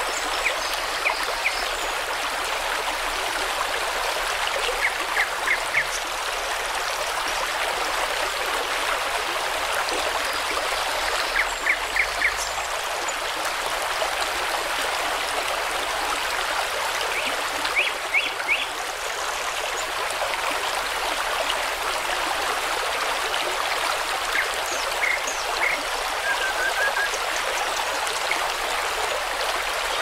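Mountain stream running over rocks in small cascades, a steady rush of water. Every few seconds a bird gives a short group of about three quick high notes.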